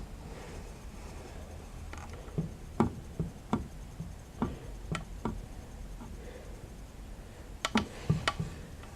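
Hand work on a drywall patch: irregular light knocks and clicks, scattered through the middle, with a quick cluster of four or five near the end.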